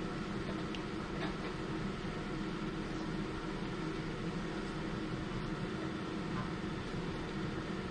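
Steady low mechanical hum with a faint hiss, with a couple of faint ticks about a second in.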